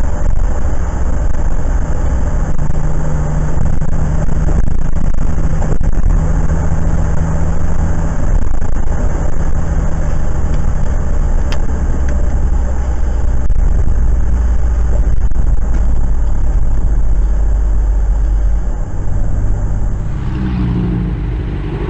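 Steady road and engine noise heard from inside a car's cabin as it drives along a wet highway in the rain. The sound shifts near the end.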